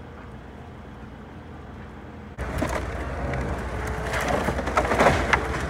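Kobelco excavator's diesel engine running steadily. About two seconds in, louder cracking and splintering of wooden barn timbers begins as the machine tears into the old barn, with the sharpest snaps a little before the end.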